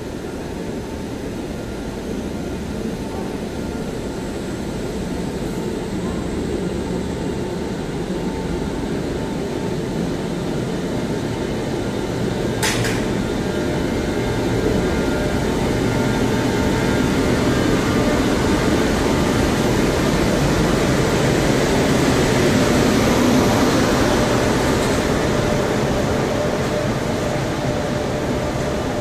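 Passenger train hauled by an electric locomotive running in along the platform: a steady rumble of the locomotive and of the coaches' wheels on the rails that grows louder as the train draws level and rolls past. A brief sharp sound a little before halfway.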